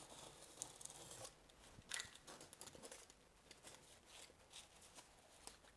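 Faint scratchy crinkling and light clicks of sheet waterproofing membrane being cut off by hand at the edge of a foam shower pan, with one sharper click about two seconds in.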